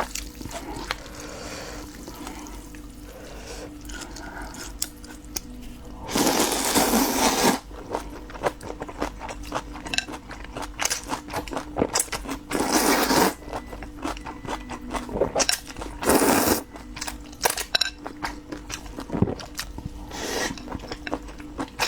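Close-miked eating of glass noodles: wet chewing and mouth clicks throughout, with three long, loud slurps of noodles, about six seconds in, about twelve and a half seconds in, and about sixteen seconds in.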